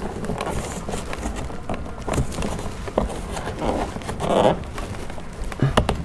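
Plastic door-handle trim on a BMW 5 Series door panel being worked loose by hand: scattered clicks and rustles of plastic, with a sharp click about three seconds in and a few more near the end.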